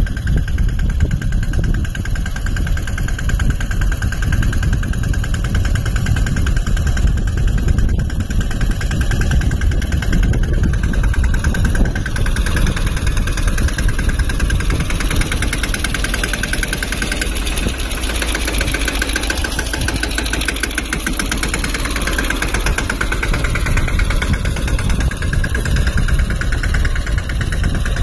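Mahindra Yuvraj 215 tractor's single-cylinder diesel engine running steadily. From about the middle for roughly ten seconds, a rougher hiss rides over the engine in the upper range.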